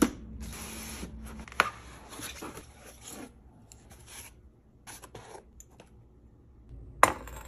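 Cardboard box of a glass teapot being opened by hand: rubbing and scraping of the cardboard with a few sharp clicks, then quieter scattered handling sounds as the glass pieces are lifted out of their foam packing, and a sharp click near the end.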